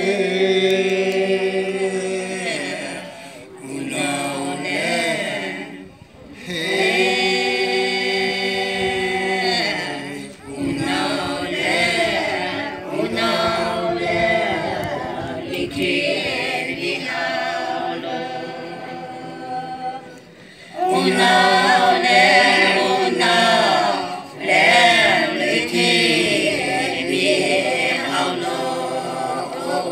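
A group of voices singing together unaccompanied, in long held notes. The song runs in phrases of a few seconds with short breaks between them, and it is louder in the last third.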